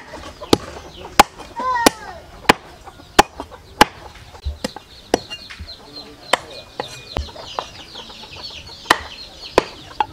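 Meat cleaver chopping a raw chicken through bone onto a wooden chopping board: sharp, even chops at about one every two-thirds of a second. A chicken clucks briefly about one and a half seconds in.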